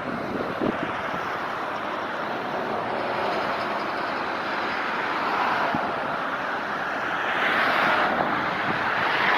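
Steady outdoor rushing noise with no clear single source, swelling about seven seconds in.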